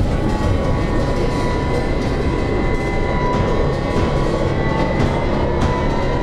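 Animated battle soundtrack: a steady, dense rumbling din from a charging army, with scattered clattering, under music holding long sustained tones.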